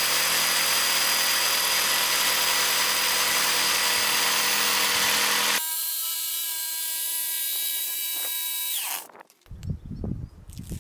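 Electric jigsaw cutting through a board, a loud steady buzz. About halfway through it runs quieter and more evenly, then winds down with a falling whine and stops after about nine seconds, followed by light handling noises.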